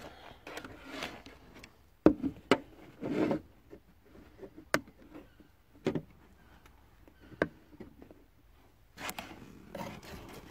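Hands working a car's plastic footwell trim and its clips loose: a handful of sharp clicks and knocks, the loudest about two seconds in, with rubbing and scraping of trim in between.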